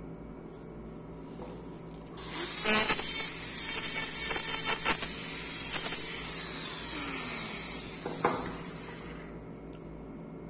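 Dental lab micromotor handpiece with a bur starting about two seconds in and grinding in uneven bursts for about four seconds, then running on more quietly and fading out near the end.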